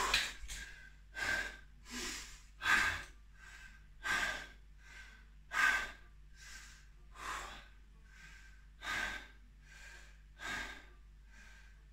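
A man breathing hard and fast, quick even breaths in and out, a little more than one each second, out of breath during a set of dumbbell shoulder presses.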